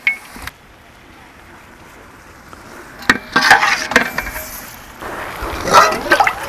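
A metal ladle clinking and scraping against a large aluminium cooking pot as whole chickens are worked into a thick tomato-onion masala. There is a cluster of sharp clinks about three seconds in, and a stretch of scraping, stirring noise near the end.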